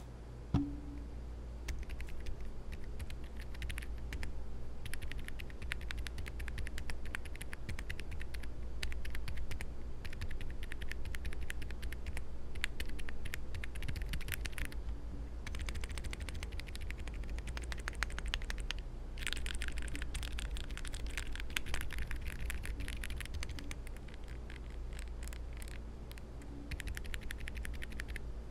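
Typing on a gasket-mounted Meletrix ZoomPad number pad built with WS silent tactile switches, a PC plate, all foams and thick PBT keycaps, unmodded: quick runs of muted keystrokes, with a short pause about halfway through. A low steady hum sits underneath.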